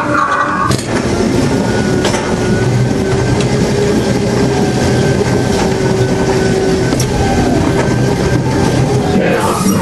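Ghost train ride car running along its track, a steady rumble with a few sharp clacks and a steady tone running through the middle of it.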